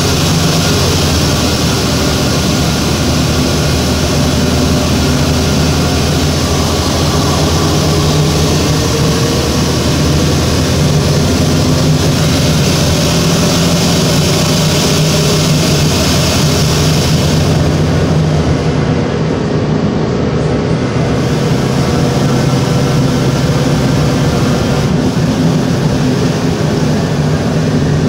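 Orion 3G transit bus engine running very loud and struggling while the bus drives, heard from inside the passenger cabin as a steady low hum with a strong hiss over it. The uploader suspects a turbo problem.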